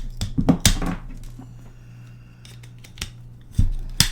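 Sharp plastic clicks and knocks as a smoke detector's plastic alarm housing is pried and handled apart, a cluster about half a second in and two more near the end, over a steady low hum.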